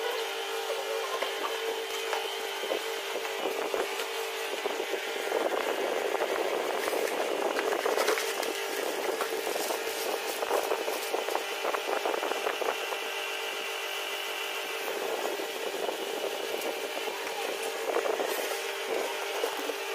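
Cardboard box and plastic packaging handled by hand, with crinkling and rustling that is busiest in the middle and briefly again near the end, over a steady low hum.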